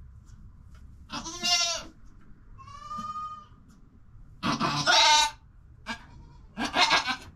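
Doe goat in labor bleating as she pushes: four strained calls about a second apart, the third the loudest.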